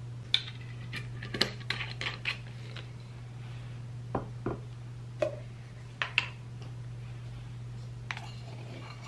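Kitchen utensils and small dishes knocking and clinking on a wooden board as ingredients are handled: a quick flurry of clinks at first, a few more midway and one near the end. A steady low hum runs underneath.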